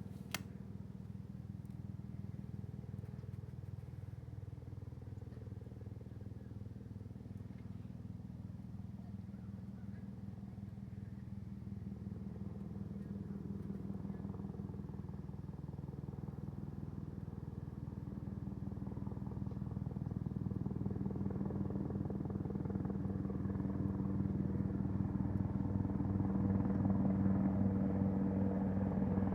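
Helicopter approaching, its rotor beat a steady pulsing that grows louder through the second half.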